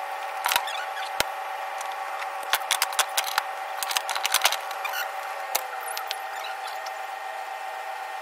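A machine's steady whine, a motor running, with scattered sharp clicks and knocks clustered in the middle.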